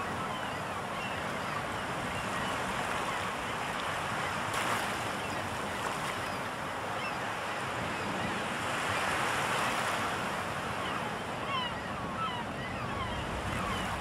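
Surf washing on a shore: a steady rush of waves that swells about four and a half seconds in and again near ten seconds, with many short high bird calls scattered through, most of them near the end.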